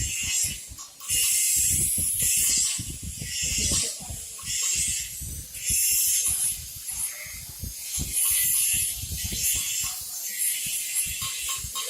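Electric arc welding: a steady crackling sizzle of the arc, coming in loud spells a second or two long with short dips between.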